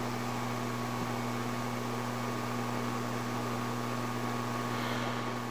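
Steady electrical hum with a constant hiss behind it.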